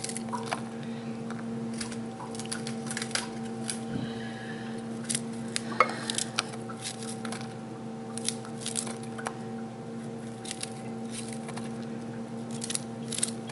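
Fresh broccoli florets being snapped and torn apart by hand, a scatter of small crisp cracks, over a steady electrical hum.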